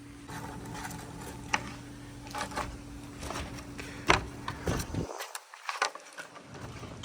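Pieces rolling down a handmade wooden marble-run track: a steady rolling rumble with scattered sharp clicks and knocks as they strike the wooden rails.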